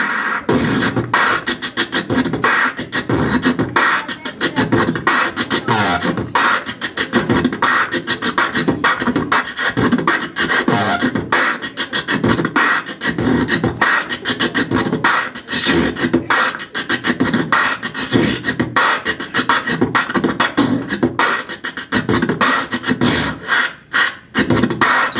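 A man beatboxing into a handheld microphone: a fast, unbroken run of mouth-made drum strokes, kicks, snares and clicks, with a few pitched vocal sounds woven in.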